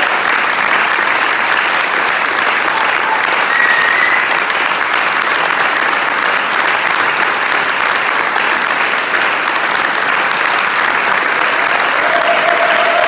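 Audience applauding steadily, a room full of people clapping at once.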